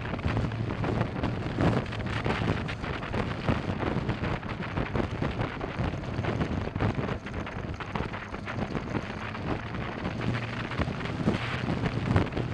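Wind rushing over the microphone of a moving motorcycle, with the engine's steady drone underneath.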